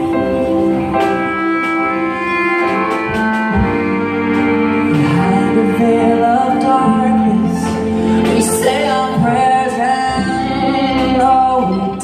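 Live band playing: a singer's voice over long held keyboard chords, with drum kit hits.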